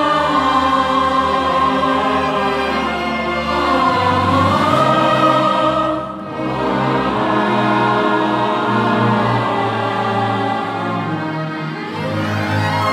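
Symphony orchestra and mixed choir performing a slow passage of long held chords that swell and ease, briefly softening about six seconds in.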